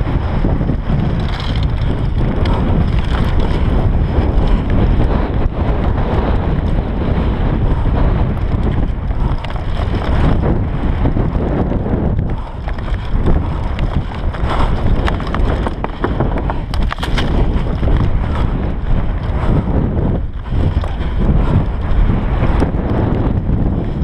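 Wind buffeting the microphone of a GoPro Hero 3 Black on a Bergamont BigAir 6.1 downhill mountain bike at speed, with the rumble of the tyres on a dirt singletrack and many short knocks and rattles from the bike over rough ground.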